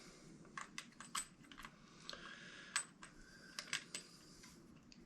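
Light, irregular plastic clicks of a Garrett Ace Apex metal detector's coil cable connector being fitted into the control housing and its retainer nut turned by hand. There are a dozen or so faint clicks, the sharpest about three seconds in.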